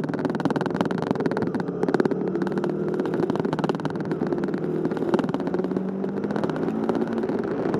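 Motorcycle engine running under way through a series of bends, its note stepping up and down as the speed changes, over steady wind noise.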